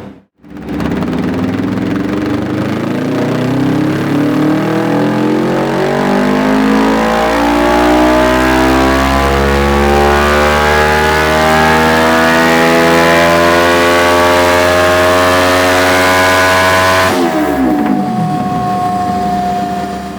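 Suzuki GS 500 parallel-twin engine through a Dominator aftermarket exhaust, revving in one long steady climb under load for about sixteen seconds, as in a dyno pull. Near the end the throttle is shut and the revs drop quickly.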